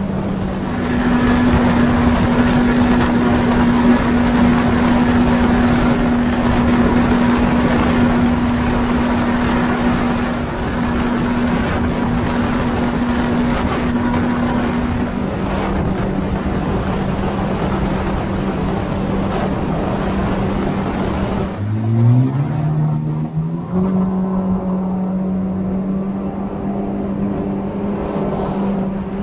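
Jet ski engine running at speed with water spray and wind rushing, holding one steady pitch. About three-quarters through it drops off briefly, then climbs in pitch over a couple of seconds as the throttle opens again, and runs on steadily.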